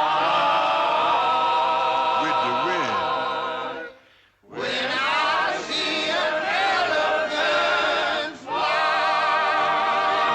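Orchestral film score with a choir singing held, wavering chords. It breaks off abruptly about four seconds in, then resumes.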